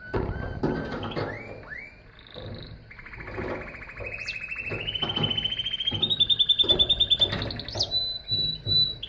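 Canary singing: a few quick rising whistles, then a fast trill of repeated notes that steps up in pitch in several stages and ends on a higher pulsing note.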